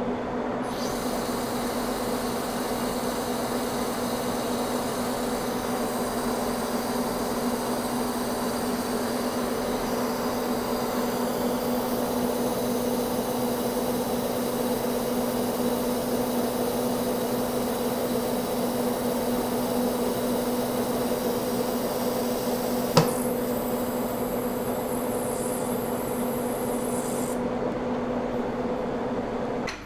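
Monarch engine lathe turning a 1045 steel shaft while its insert takes a light 20-thousandths skim cut: a steady machine hum with a hiss from the cut that starts about a second in and stops a couple of seconds before the end. One sharp click comes near the end.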